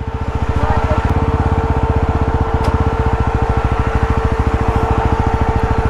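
Motorcycle engine running at low speed while the bike is ridden slowly to park, its exhaust giving a fast, even pulse. A steady high hum runs along with it.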